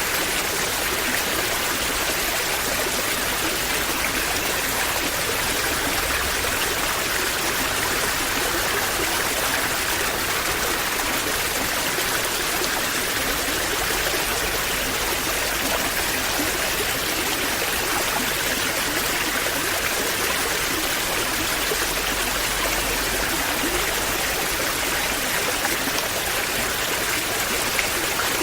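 Waterfall: water falling and rushing in a steady, unbroken rush.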